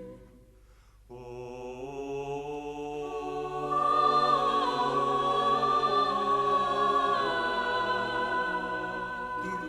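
Film-score music. After a near-pause of about a second, slow held chords swell back in. A high sustained melody line enters about four seconds in and becomes the loudest part.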